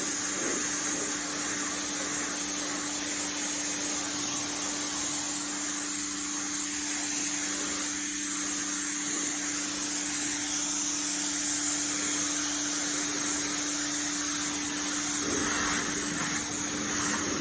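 Pressure washer spraying: a steady hiss of high-pressure water over a constant hum from the machine's pump.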